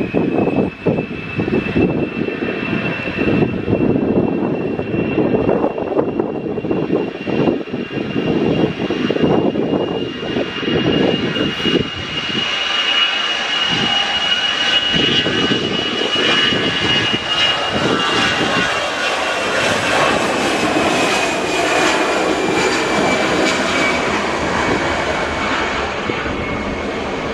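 Jet airliner's engines: a high whine that holds steady and then slowly drops in pitch through the last third, over a roar that grows fuller in the second half. Gusty wind rumbles on the microphone, strongest in the first half.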